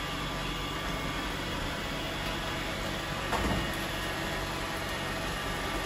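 Several robot vacuums, a Shark among them, running at once as they sweep confetti off a hardwood floor: a steady hum of motors and brushes, with a brief louder sound a little past halfway.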